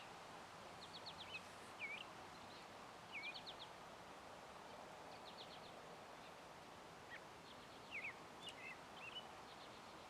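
A small bird singing faintly: short phrases of three or four quick high chirps, each ending in a slurred lower note, repeated every two to three seconds over a steady background hiss.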